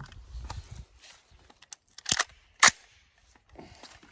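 Metallic clicks and clacks from handling a Remington 700 bolt-action rifle in .308: a few light clicks, then two sharp clacks about half a second apart near the middle, the second the loudest.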